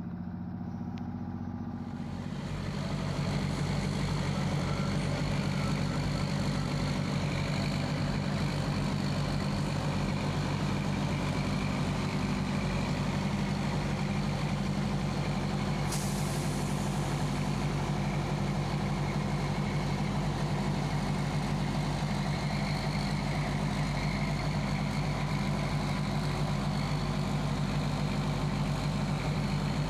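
Large diesel bus engine idling steadily, growing louder over the first few seconds and then holding an even drone; a faint hiss joins about halfway through.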